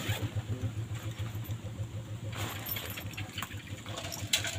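A small engine running steadily with a low, even throb. A couple of light metallic clinks come over it, the sharpest near the end.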